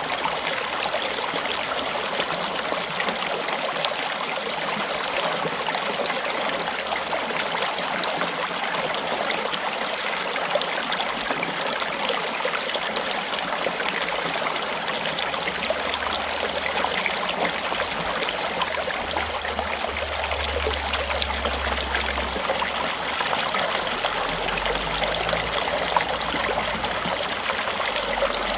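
Small stream flowing and trickling steadily over rocks, an even rushing babble.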